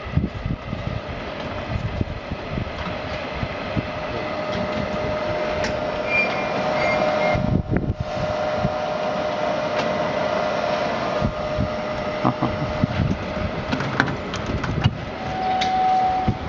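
Continuous deep fryer's electric gear motor and mesh belt conveyor running: a steady mechanical hum with a faint whine, dipping briefly about eight seconds in, with scattered light clicks.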